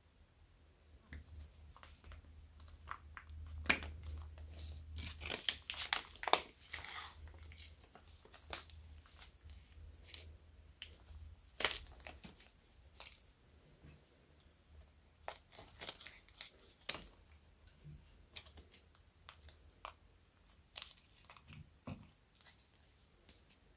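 Clear slime squeezed out of a plastic piping bag: the bag crinkles while the slime gives sticky crackles and small clicking pops. The crackling is densest a few seconds in, with scattered sharp clicks later.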